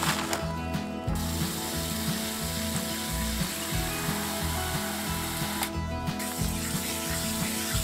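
Water hissing from a garden hose spray nozzle onto dry white cement powder in a rubber mixing tub, wetting it for mixing. The spray cuts out briefly about six seconds in, then starts again.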